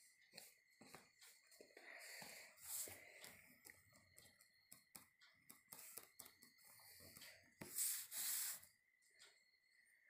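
Faint pencil strokes scratching on paper, with a louder stretch of scraping about eight seconds in.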